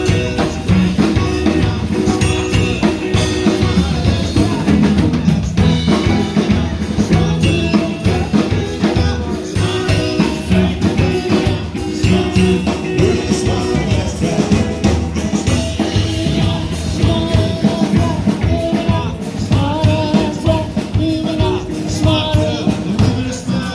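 A band playing a song, with a drum kit keeping a steady beat under bass and other instruments.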